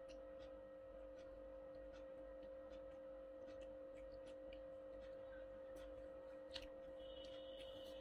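Quiet room with a steady hum holding two constant tones, under faint scattered clicks and crackles of fried popcorn chicken being picked apart by hand, with one sharper click about six and a half seconds in.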